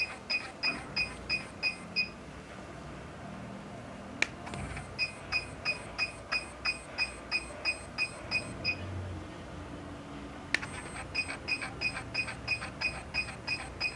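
HIFU face-lifting machine beeping with each shot it fires: rapid short beeps about three a second in runs of about a dozen, with pauses of a few seconds between runs. A sharp click comes just before each run.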